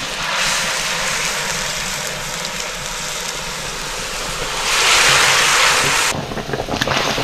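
Large pieces of boiled pork sizzling as they are lowered with tongs into a wok of hot oil. The hiss swells louder about five seconds in as another piece goes in, then drops away suddenly.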